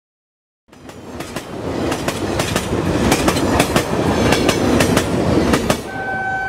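Outro sound effect: after a short silence, a loud rumble with rhythmic clattering, about four clicks a second, like wheels over rail joints, then a steady horn-like tone near the end.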